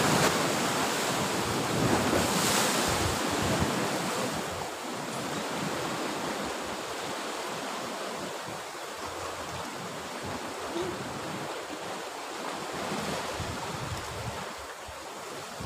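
Sea surf washing and breaking on the shore, with wind buffeting the microphone; a little louder over the first few seconds, then steady.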